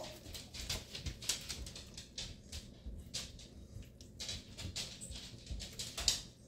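A utensil stirring a thick, creamy pasta mixture in a frying pan: irregular scrapes and light clicks against the pan, a few a second.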